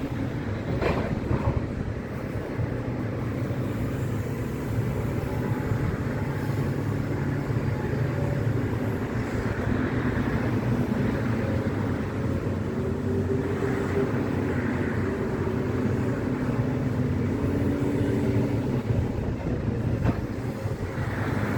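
Heavy crawler excavator's diesel engine running under working load, its pitch rising and falling as the hydraulics take the strain during demolition, with a short clank about a second in.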